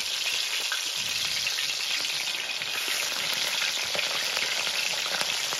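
Flour-dredged pacu frying in hot fat in a wide pan (tacho): a steady sizzle with a few small pops.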